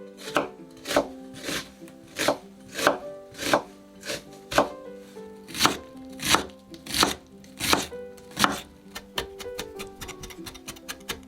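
Kitchen knife chopping on a cutting board: slow, evenly spaced strokes for most of the stretch, then a faster run of lighter chops near the end.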